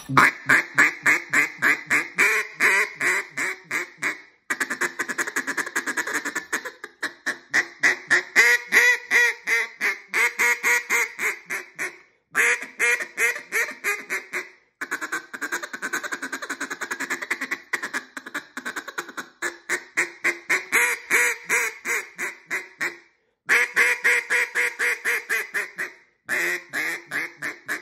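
Duck call blown in long runs of fast quacking notes, several a second, broken by a few short pauses. The call has just been retuned with its reed reseated under a fresh cork, and is sounding good.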